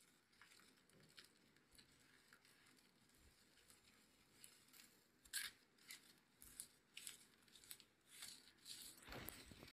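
Faint clicks and scrapes of hand dental instruments, a composite spatula and a fine probe, working composite resin on a model front tooth. The ticks grow sharper and more frequent after about five seconds, with a longer scrape near the end.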